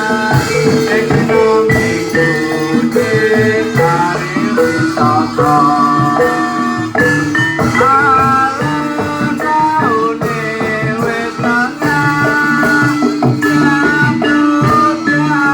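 Javanese jatilan accompaniment music: a dense ensemble of tuned instruments and percussion playing a steady, busy rhythm with a melody line over it.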